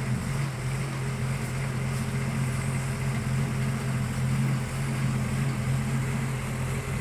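Casagrande drilling rig's diesel engine running steadily, a low, even hum with no change in speed.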